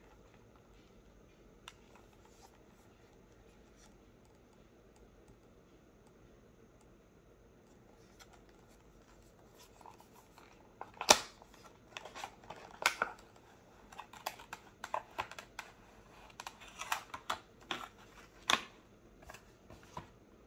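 A knife box being opened by hand. It is quiet for about the first ten seconds, then comes a run of clicks, taps and scrapes from the box. The loudest is a sharp snap about eleven seconds in, with more sharp clicks near thirteen and eighteen seconds in.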